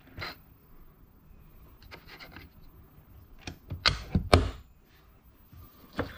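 Knocks and clacks of wooden pieces and a metal toggle clamp being handled and set down. A quick cluster of sharp clacks about four seconds in, the loudest of them, comes as the toggle clamp is pressed down onto a wooden springboard block to hold the work.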